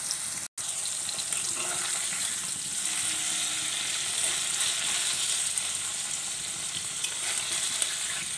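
Paneer cubes frying in hot vegetable oil in a kadai: a steady sizzle, with a spatula turning them in the pan near the end. The sound cuts out for an instant about half a second in.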